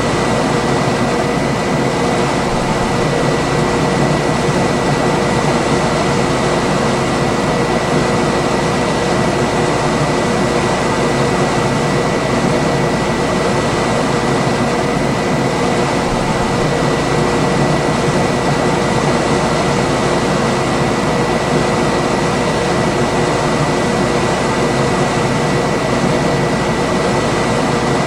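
Room air conditioner running steadily: an even fan rush with a constant hum made of a few steady tones, one of them a faint high whine.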